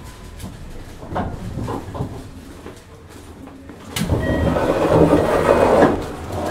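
Running sound heard from inside a JR Hokkaido 733 series electric train car: wheels rolling on the rails with a few knocks. About four seconds in, a sudden much louder rushing noise starts and lasts about two seconds.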